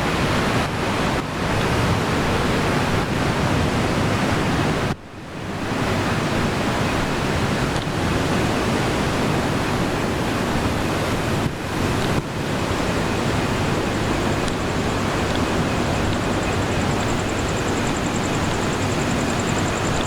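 Sea waves washing on the shore at night, a dense steady rushing, which cuts out abruptly for a moment about five seconds in. Over the last few seconds a high, fast-pulsing insect trill comes in above the surf.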